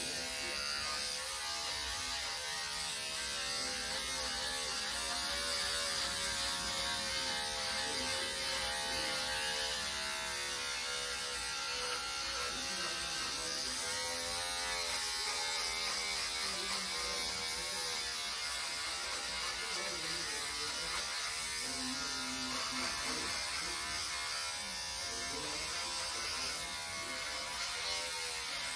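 Braun 6-in-1 electric shaver running steadily while shaving, its buzz wavering in pitch as it cuts through hair.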